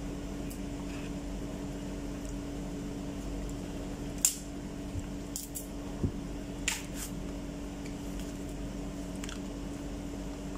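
Bananas being eaten and peeled in a hurry: wet chewing sounds and a cluster of short, sharp snaps and tears of banana peel about halfway through, over a steady background hum.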